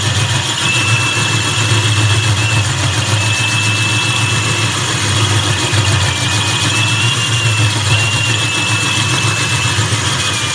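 Drill spinning a 1¼-inch diamond hole saw as it cuts into granite: a steady loud drone with a thin high whine that wavers slightly in pitch, cutting off suddenly at the end.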